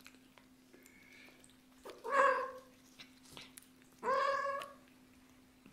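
Kitten meowing twice, two short high meows about two seconds apart.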